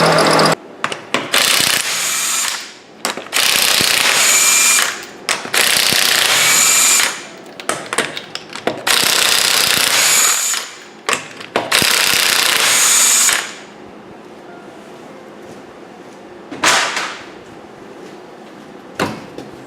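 Pneumatic impact wrench spinning the lug nuts off a front wheel of a 2001 Ford Taurus. It runs in five loud bursts of about a second and a half each, with short pauses between them, and then stops.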